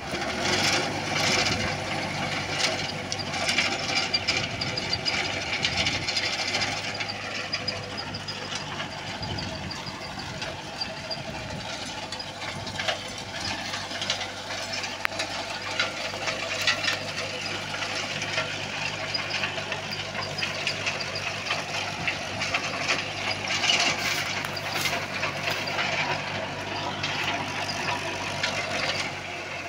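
Tractor diesel engine running steadily under load while a reverse-rotation rotavator churns dry, grassy ground. Its blades throw soil and debris in a dense, continuous rattle.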